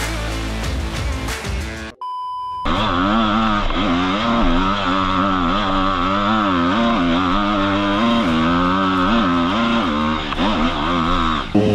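Background music, cut off about two seconds in by a short electronic beep. Then an enduro motorcycle's engine runs loudly, its revs rising and falling as it is ridden over snow.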